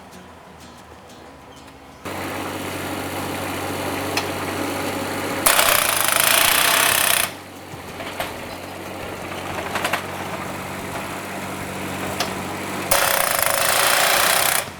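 A machine engine starts running about two seconds in. Over it come two loud spells of rapid powered hammering, each under two seconds long, typical of a powered driver driving silt-fence stakes into the ground.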